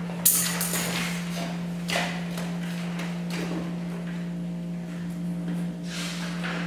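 Quiet room tone with a steady low hum, broken by a few short knocks and rustles: the sharpest about a quarter second in, others around two seconds and near six seconds.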